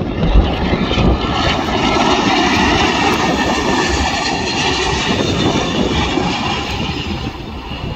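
Jet engines of an Airbus A320 airliner on short final and landing, a loud, steady rushing noise with a whine running through it.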